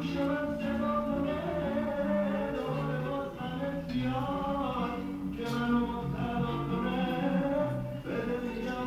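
Background music: a song with a voice singing over instrumental accompaniment.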